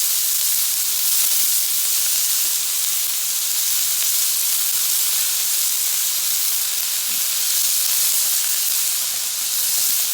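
Food sizzling steadily on a hot iron griddle, an even high hiss.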